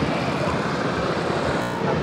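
Street traffic running steadily, motorbikes and cars passing, with music playing in the background.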